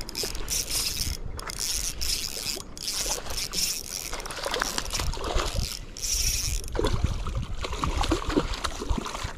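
Spinning reel being cranked in short bursts while a hooked trout thrashes and splashes at the surface close to the bank. A low rumble builds about halfway through.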